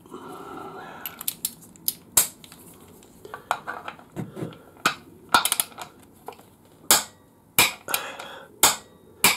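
Click-type torque wrench with a Torx 50 bit tightening a motorcycle's oil drain plug to a set 28 newton metres. It gives irregular sharp metallic clicks as it ratchets and is repositioned, including the wrench's release click when the set torque is reached.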